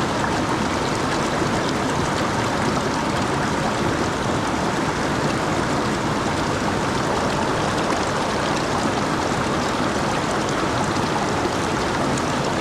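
Steady rush of a swollen mountain stream running high after a typhoon.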